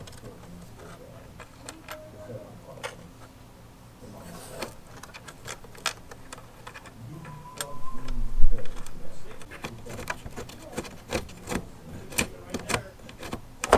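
Irregular light clicks and taps of hand tools and small metal hardware being handled while screws are fitted, with a brief squeak and a heavier thump about eight seconds in.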